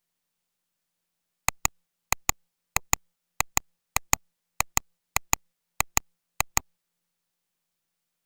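A clicking sound effect: nine quick double clicks at an even pace of about one pair every 0.6 seconds, like a clock's tick-tock, starting about a second and a half in.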